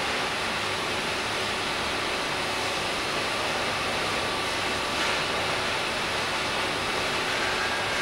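Steady running noise of a Riello VFX 300 rotary transfer machine, an even hiss with a faint steady whine and no distinct cutting or impact events.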